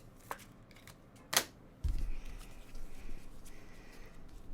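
Trading cards being handled and flipped through on a table: two short sharp clicks, the louder about a second and a half in, then a low, continuous rustling and bumping of cards and table.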